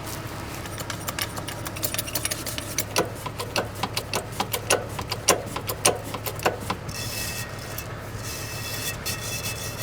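Gravel clattering in a quick, irregular string of stony clicks and knocks as it is piled up to set a jack on, over the steady low hum of an engine running.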